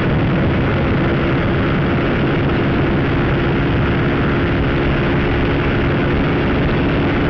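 Honda CBR125 motorcycle's single-cylinder engine running at steady revs while riding along, heard with a steady rush of wind noise over the onboard microphone.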